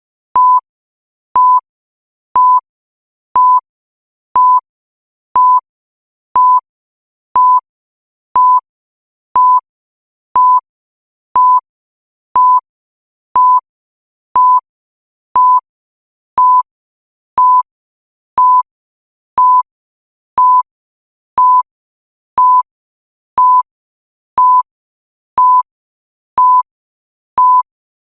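Countdown timer's electronic beep: a short single-pitched tone sounding once every second, marking off each second of the count.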